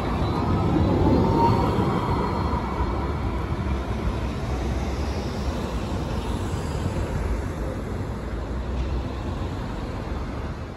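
Modern low-floor electric tram running past on its track: a steady rumble with an electric motor whine that rises gently in the first couple of seconds. The running noise is loudest a second or two in, then slowly fades as the tram draws away.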